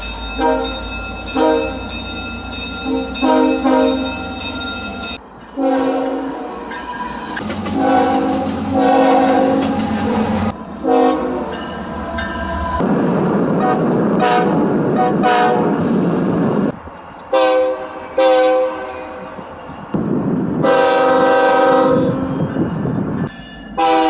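Several different locomotive chord horns sound in turn, in short and long blasts, each clip breaking off abruptly where the next horn begins. A low engine rumble lies under the first few seconds, and the rumble and clatter of a passing train fills one stretch near the middle.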